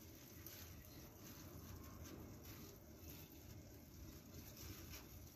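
Near silence with faint, irregular soft rustles: plastic-gloved hands spreading sushi rice over a sheet of nori on a bamboo rolling mat.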